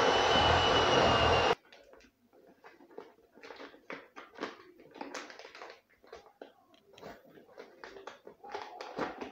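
Electric hand mixer (Moulinex) running steadily, beating eggs in a plastic bowl, then stopping abruptly about a second and a half in. After that, soft rustling and crinkling as a paper sugar packet is opened.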